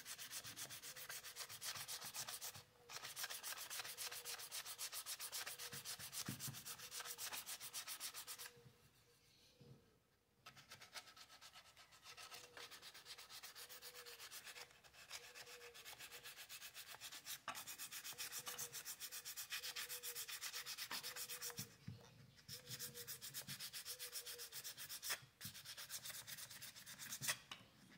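Sanding of a carved wooden figure's filled and painted surface in rapid rubbing strokes, smoothing the filler patches before repainting. The strokes stop briefly a few times, with a longer pause of about two seconds some nine seconds in.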